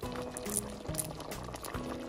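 Background music with a steady beat and a simple melody of held notes.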